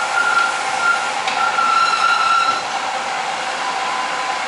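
Rolling brake tester's electric roller drive running with a steady whine. About two and a half seconds in it drops to a lower, slightly quieter tone.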